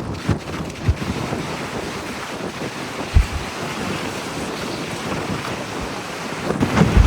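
Strong wind buffeting the microphone over a steady rush of surf. Heavy low thumps of gusts hit a few times, with a cluster of them near the end.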